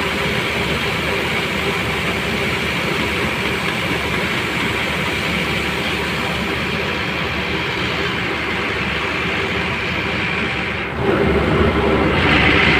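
Mahindra combine harvester running steadily while threshing paddy, heard from beside its grain tank as the grain pours in. About 11 seconds in it gets louder, with a stronger high whine.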